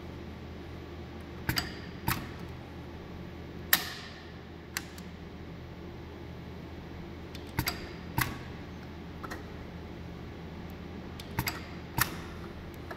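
Semi-automatic carrier-tape taping machine clicking and clacking sharply several times, often in pairs about half a second apart, over a steady low machine hum.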